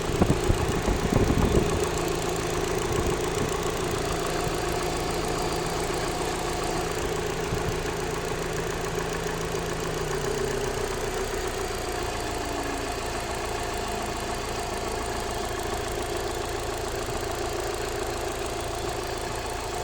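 Alfa Romeo 156 1.6 Twin Spark four-cylinder engine idling with a ticking from the upper engine bay, of unknown cause. A few louder knocks come in the first two seconds, and about halfway through one steady tone in the engine note slides slightly lower.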